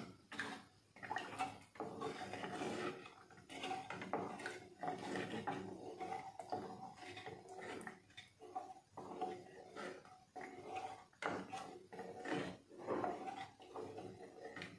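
Plastic spoon stirring milk in an aluminium pressure cooker, scraping and knocking against the pot in repeated, irregular strokes as the liquid sloshes.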